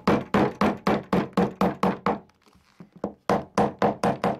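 Small hammer tapping a replacement heel tip into the heel of a high-heeled shoe: quick sharp strikes, three or four a second, stopping for about a second halfway through and then starting again.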